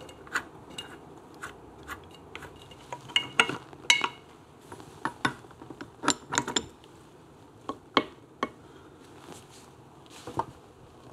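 Irregular sharp metallic clicks and clinks of a socket, extension and wrench being fitted onto a nut on a Triumph Tiger Cub engine shaft and the nut being tightened. A few of the clinks ring briefly, the loudest about four and six seconds in.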